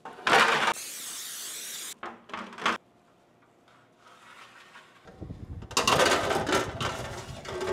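Kitchen handling sounds: first a loud rustle and tear as skin is pulled off a rotisserie chicken, then a few light clicks, then from about five seconds in a long metallic scrape as a sheet pan with a wire rack slides onto the oven rack.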